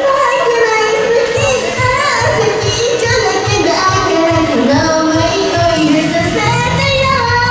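A young woman singing a Japanese pop love song into a karaoke microphone over a karaoke backing track with a steady beat.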